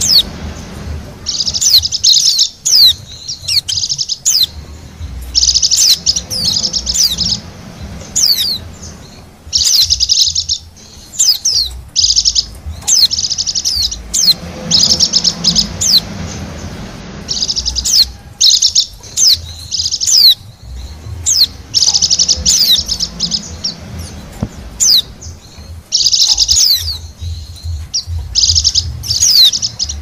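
White-eyes (pleci) chirping and chattering as a lure call for wild birds. Loud bursts of dense twittering return about every four seconds, with thin, high, falling calls in between.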